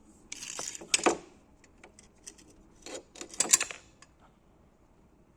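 Metal tools and parts clinking and clattering in two short bursts, the second about three seconds in, with a few light ticks between.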